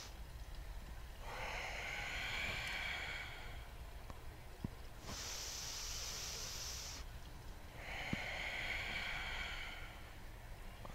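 A person's slow, deep breathing during yoga cow-cat breaths: long breaths in and out that alternate, each lasting two to three seconds. Two soft taps come about halfway through and again later.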